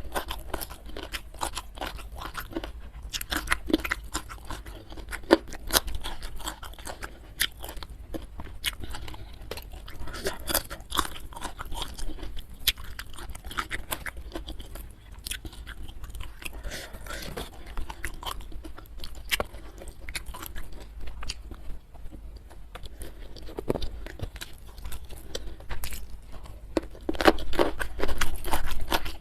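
Close-miked chewing and crunching of food in the mouth, with irregular crisp crunches throughout that grow louder and denser near the end.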